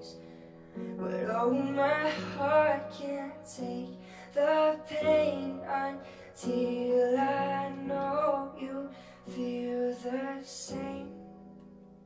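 A young man singing an original song, accompanying himself on a keyboard that holds sustained chords under the voice. The vocal comes in phrases with short breaks between them.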